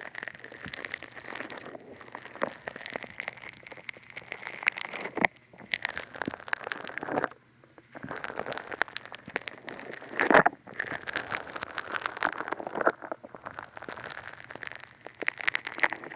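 Funny Foam, a soft foam soap, squished and worked directly on a dummy head's ear microphones, giving close, dense crackling with a few short pauses and one louder pop about ten seconds in.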